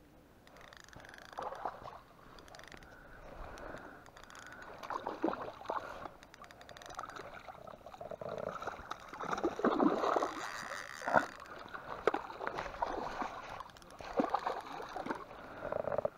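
Water splashing and sloshing from a hooked trout thrashing at the surface as it is played in toward a landing net in the shallows. The splashes come irregularly and are loudest about ten seconds in.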